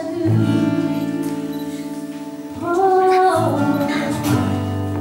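Background music: a slow song with a singer's long held notes over steady accompaniment.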